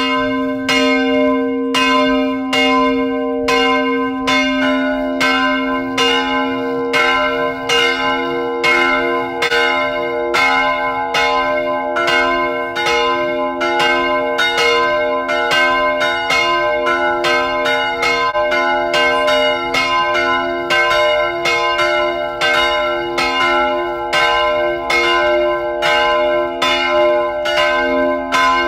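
Church bells ringing: a steady succession of strikes, each leaving a long ringing tone, with more bells joining about four seconds in.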